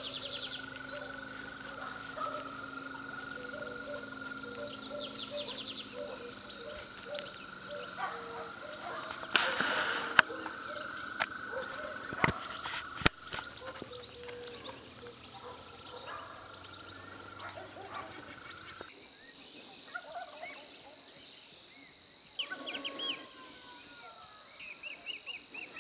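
Outdoor evening ambience with birds and other animals calling repeatedly over a steady low background, broken by a brief rush of noise and a few sharp knocks around the middle; about two thirds of the way through the low background drops away and it becomes quieter, with scattered chirps.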